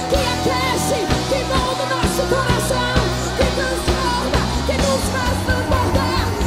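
Live worship band music: a drum kit beating steadily over sustained bass notes that change a few times, with voices singing.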